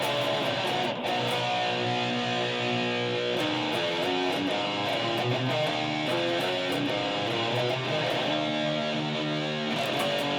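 Guitar playing part of a heavy metal, rock and prog medley: held notes and chords that change every few seconds.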